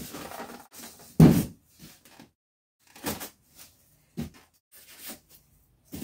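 Utility knife cutting along the lid seam of a large polystyrene foam box, heard as a series of short scraping bursts of blade and hands on foam, the loudest about a second in.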